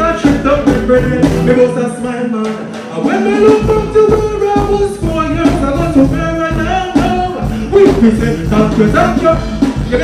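Live stage performance: a vocalist on the microphone over a loud backing track with a steady drum beat, played through the PA. The bass drops out for about a second around two seconds in, then comes back.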